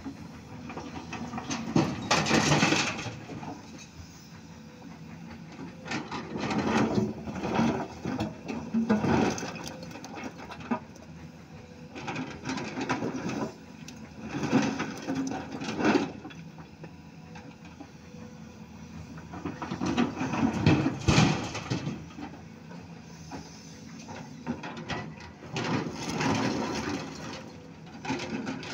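Volvo hydraulic excavator working in repeated dig-and-dump cycles: its diesel engine runs steadily and swells under load about every five to six seconds, together with loud clattering of broken rock being scooped from the pile and dropped into the steel body of an AMW dump truck.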